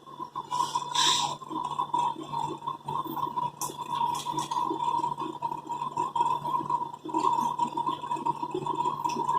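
Static cupping being set up on the back: a steady buzzing hum starts at the outset, with rattling and a few clicks of the cupping equipment over it.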